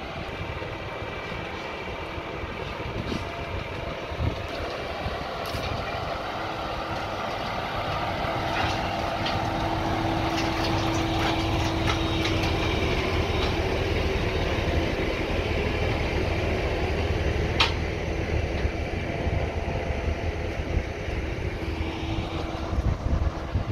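DAF truck's diesel engine running as the car-carrier truck drives up and idles. The sound grows louder toward the middle, carries a steady whine for several seconds, and has a few sharp clicks, the clearest about three-quarters of the way through.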